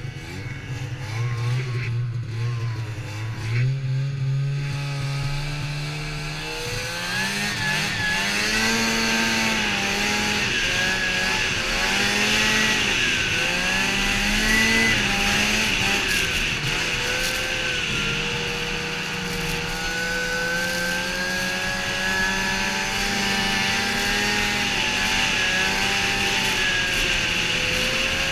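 Snowmobile engine heard from the rider's seat. It runs low at first, revs up about six seconds in, rises and falls with the throttle for several seconds, then settles into a steady higher cruising note.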